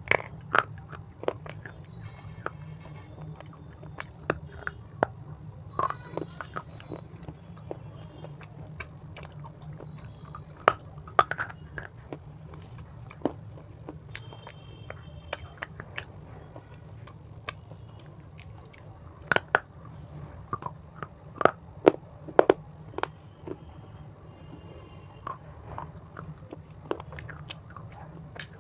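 Close-miked chewing and biting of a crunchy snack: irregular sharp crunches and wet mouth clicks, denser around the middle, over a steady low hum.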